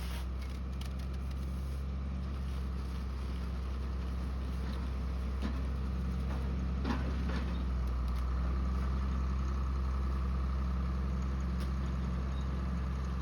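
Engine running steadily as it powers a big square bale wrapper, with a higher machine hum that grows stronger from about halfway through and a few faint clicks near the middle.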